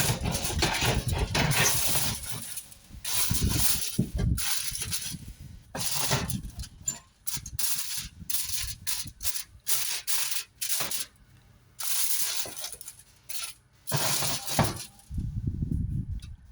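Irregular bursts of kitchen clatter and rustling handling noise, stopping and starting every second or so.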